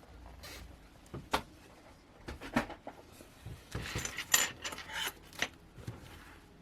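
Unboxed items being handled on a desk: a few small clicks and knocks with rubbing and rustling, loudest in a cluster about four seconds in.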